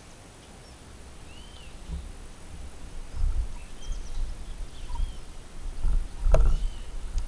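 Wind buffeting the microphone in uneven gusts, stronger from about three seconds in, with a few short arching bird calls. There is a sharp click a little after six seconds.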